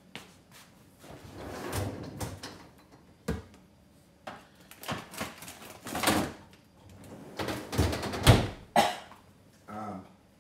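A freezer door being opened and shut, with scraping, rustling and several sharp knocks from the meat being put away; the loudest thump comes a little after eight seconds in.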